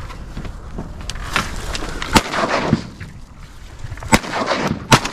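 Three sharp shotgun reports, about two seconds in, then near four and five seconds in, as the hunters fire at passing ducks.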